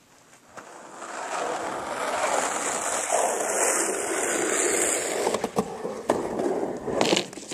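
Skateboard wheels rolling, the rumble growing louder for a few seconds, then a series of sharp clacks and knocks of the board, the loudest near the end.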